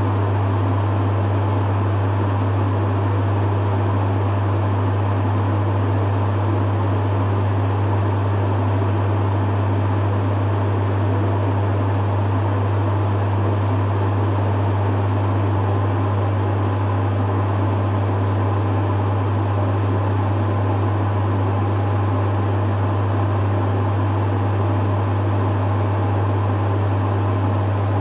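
Dehumidifier running steadily: a strong low hum under the even whoosh of its fan, unchanging throughout.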